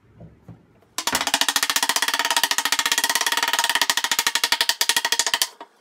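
Mallet rapidly tapping a dovetailed wooden case joint together. The fast, even run of blows starts about a second in and stops abruptly.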